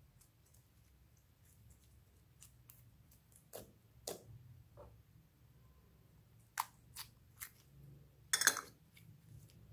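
Soft slime being pulled and pressed by hand in a glass bowl, giving scattered sticky clicks and pops, with a longer crackling squelch near the end.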